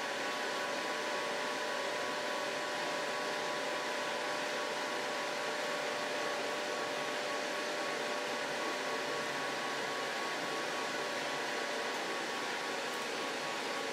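Desktop laser welder's water-cooling system running after power-on, its pump and fan giving a steady even whir with a faint constant whine as water circulates through the tubes to the tank.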